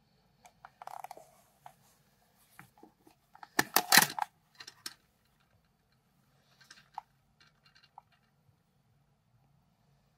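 Plastic clicks and rattles of a Fuji DL 95 compact 35mm film camera being handled. A loud cluster of clicks comes about four seconds in, with scattered lighter clicks before and after.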